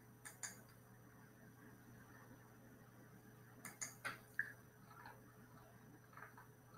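Near silence over a faint steady low hum, broken by a few short clicks: two about half a second in, and a quick run of four around four seconds in.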